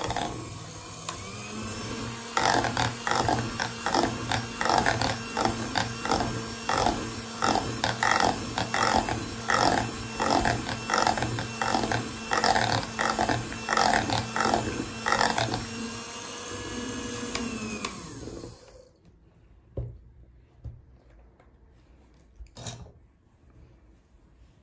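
Electric hand mixer with twin beaters running in thick cake batter in a glass bowl, its motor pulsing about twice a second as the beaters work through it. This is the batter being beaten until smooth with no lumps of flour left. Near the end the motor winds down and stops, followed by a couple of faint knocks.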